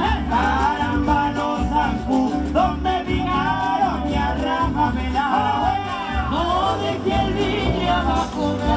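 Live Latin band music with a steady pulsing bass beat and a melody line over it.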